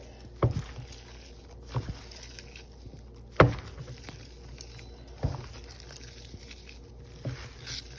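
Masala-coated beef tripe being handled in a bowl by hand: a few scattered soft knocks and wet handling noises, the sharpest about three and a half seconds in, over a faint steady low hum.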